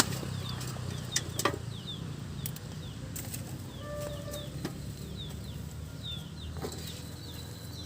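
Small birds chirping, many short falling chirps repeated through the whole stretch, over a low background rumble. A few sharp clicks or knocks come in the first two seconds, and a brief steady tone sounds about four seconds in.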